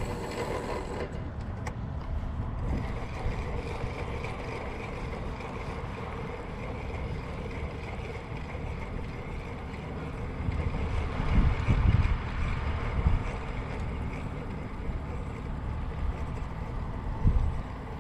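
Wind buffeting the microphone in gusts, strongest a little past the middle and again near the end, over a steady wash of sea against a rocky shore.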